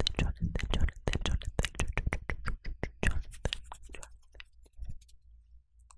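Dry mouth sounds very close to a microphone: a rapid run of tongue clicks and lip smacks, many to the second, thinning out after about four seconds.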